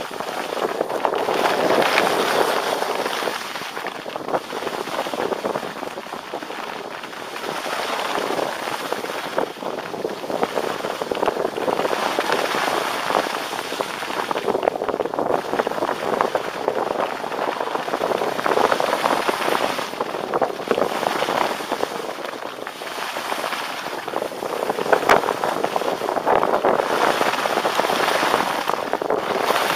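Skis scraping and carving over packed snow: a gritty, crackling hiss that swells and fades every few seconds with the turns.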